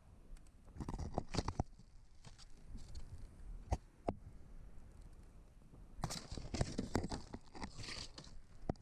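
Camera rubbing and knocking against sooty brick and stone inside a chimney flue: irregular scrapes, crunches and clicks, busiest about a second in and again from about six seconds in.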